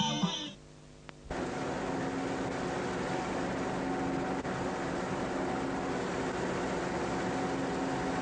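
Music ends about half a second in; after a short near-silent gap, an engine runs with a steady, even hum and hiss.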